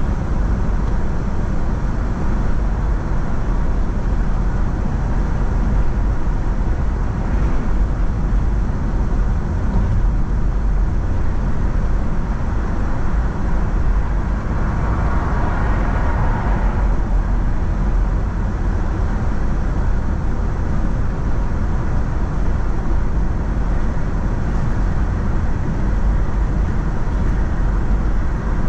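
A car driving on the road: a steady rumble of road and tyre noise that swells briefly about halfway through.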